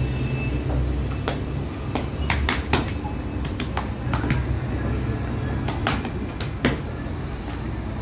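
Feteer dough being flapped through the air and slapped and patted onto a metal-topped work table, giving sharp, irregular slaps over a steady low hum.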